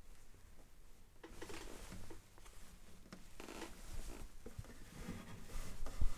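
Soft rustling of hands and a shirt sleeve as a seated guitarist rubs his face and hair, with a few dull low bumps near the end as he shifts and clasps his hands.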